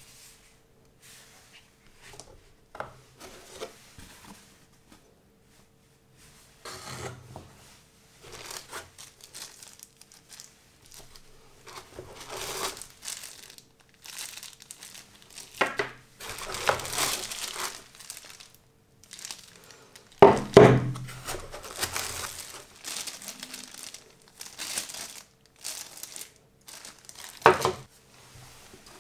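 Clear plastic packaging crinkling and rustling in gloved hands as bagged rifle parts are handled and unpacked, with soft knocks of items being set down. One louder thump comes about two-thirds of the way in.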